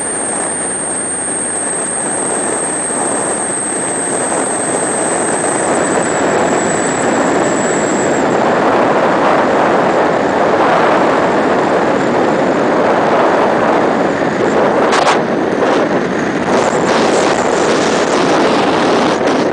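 Titan Tornado ultralight aircraft heard from on board during its landing approach: engine and rushing air in a dense, steady noise that grows louder. A thin high whine slowly falls in pitch and fades out about eight seconds in, and a few sharp knocks come near the end.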